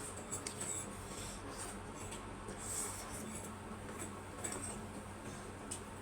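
Noodles being eaten close to the microphone: scattered small mouth clicks and smacks at an uneven pace, over a steady low hum.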